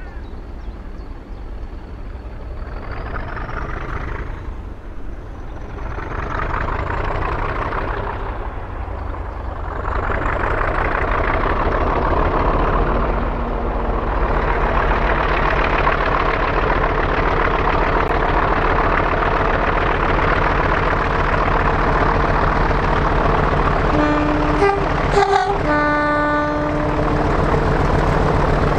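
British Rail Class 40 diesel locomotive approaching under power, its English Electric 16-cylinder turbocharged engine growing louder, with the high turbocharger whistle that earns the class its 'Whistler' nickname rising in pitch over the first ten seconds. Near the end the locomotive sounds its horn briefly.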